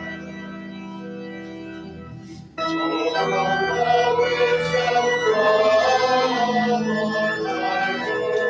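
Church organ playing a hymn in steady held chords; about two and a half seconds in it turns suddenly louder and fuller.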